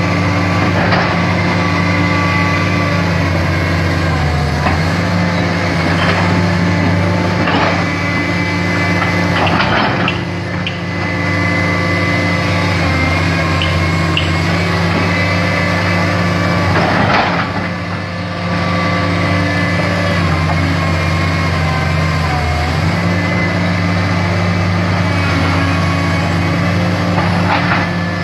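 Komatsu excavator's diesel engine running steadily, its pitch dipping briefly a few times as the load changes, with several short knocks or clanks.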